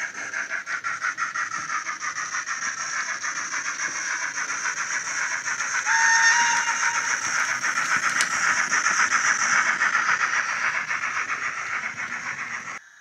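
Recorded steam locomotive sounds from an ESU LokSound 5 DCC decoder with the Wheeltappers sound file, played through a small thin 'sugarcube' tablet speaker in a Sonic Models A5 tank engine model. The exhaust chuffs rapidly and evenly as the engine runs, and a short two-tone whistle sounds about six seconds in.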